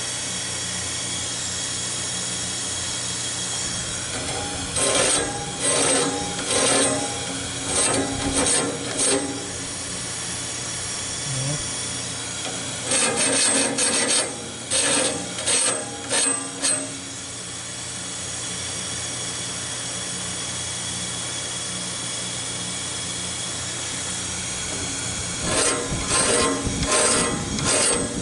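Handheld air tool running with a steady hiss, dressing the teeth of a sawmill band-saw blade in short grinding strokes, one tooth after another. The strokes come in three runs of several quick passes, with the tool running on between them.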